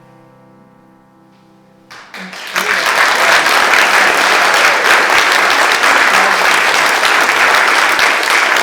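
The final piano chord dies away, then an audience breaks into applause about two seconds in, quickly building and clapping steadily and loudly.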